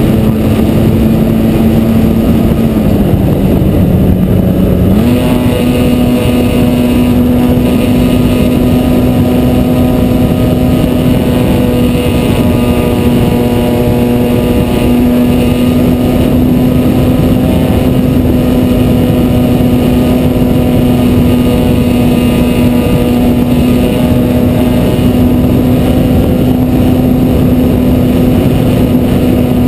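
Electric motor and propeller of a Parkzone T-28 Trojan RC plane running steadily, heard from a camera mounted on the plane just behind the propeller, over wind rushing across the microphone. The pitch drops about three seconds in as the throttle eases, then comes back up about five seconds in and holds.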